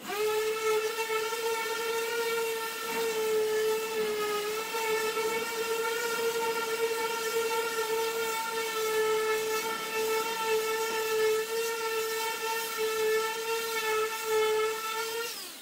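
Electric sander with a round 320-grit disc running steadily with a high whine while sanding bare aluminum sheet wetted with diesel. The pitch sags slightly about four seconds in.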